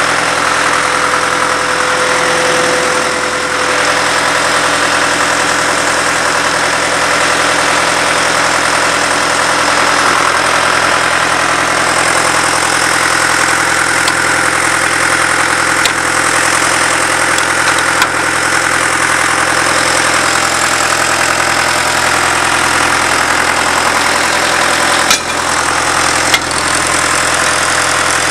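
Engine of a 22W cable tool drill rig running steadily at idle, with a few sharp clicks or knocks, the two loudest near the end.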